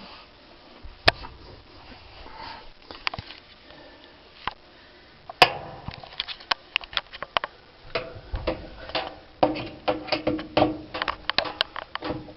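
Irregular clicks, knocks and light rattles of Frigidaire Gallery dryer parts being handled as the lint-screen housing is taken apart. They are sparse at first and come thick and fast from about halfway through.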